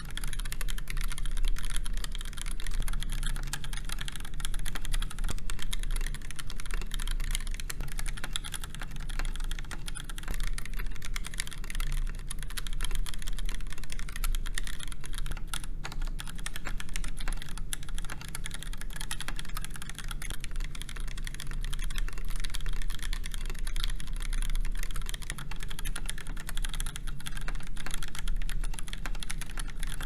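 Fast, continuous typing on a KBD8X MKII custom mechanical keyboard in a polycarbonate top and bottom case, with a brass full plate, stock Gateron Yellow linear switches and GMK 9009 ABS keycaps; the polycarbonate case gives the keystrokes a hollow sound.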